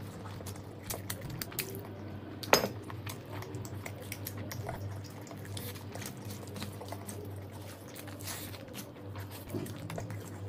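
Close-mic eating sounds: wet chewing and lip smacking, with soft squishes and clicks as biryani rice and liver curry are mixed and scooped by hand. One sharper click about two and a half seconds in, over a faint steady hum.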